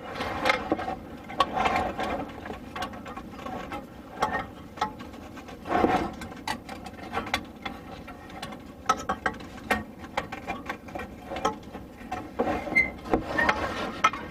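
Irregular clicks, knocks and scrapes of a diesel heater unit being handled and worked down into place, with a louder knock about six seconds in.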